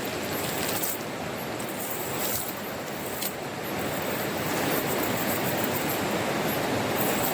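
Steady rushing of a river, an even wash of flowing water with no break.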